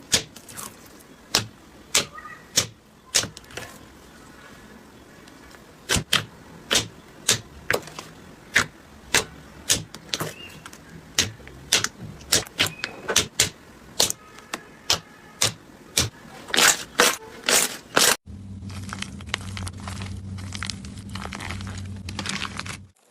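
Slime being worked by hand, giving sharp popping clicks about twice a second. After a sudden change near the end, a steady rubbing sound with a low hum.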